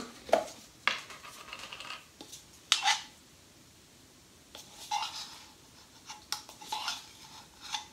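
A measuring spoon clinking and scraping in a can of baking powder as half a teaspoon is measured out. A few sharp clicks come in the first three seconds, then a pause, then a run of light scraping and tapping.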